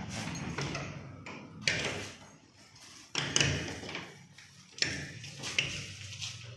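Five sharp knocks and bumps spread across several seconds, each dying away over a fraction of a second.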